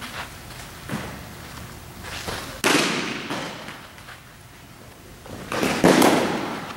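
Baseballs thrown at a crouching catcher striking his gear: two loud, sharp smacks about three seconds apart, each echoing briefly in a large room, with a few fainter knocks before them.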